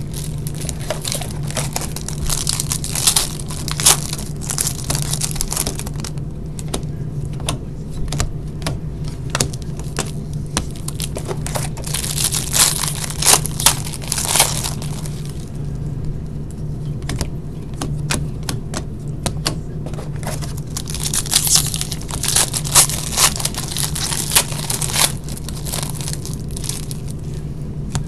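Trading card boxes and packs being unwrapped: wrapping torn and crinkled in several spells, with sharp clicks of handling, over a steady low hum.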